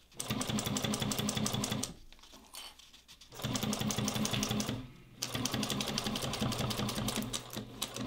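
Juki DNU-1541 industrial walking-foot sewing machine stitching in quick, even strokes. It runs in three bursts, stopping briefly about two seconds in and again around five seconds.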